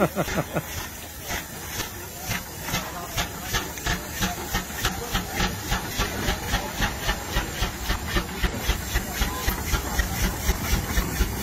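Case steam traction engine under way, its exhaust chuffing in a steady beat of about three a second that quickens slightly, over a constant hiss of steam.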